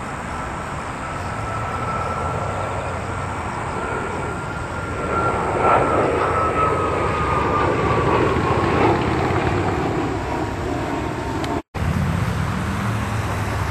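U-125A search-and-rescue jet's twin turbofans flying past: the engine noise swells to its loudest about six seconds in, with a high whine that slowly drops in pitch as the jet goes by. The sound cuts out for an instant near the end.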